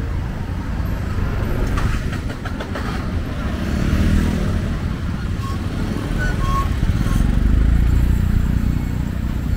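City street traffic: motorbike and tuk-tuk engines running and passing close by, a steady low rumble that swells and fades as vehicles go past.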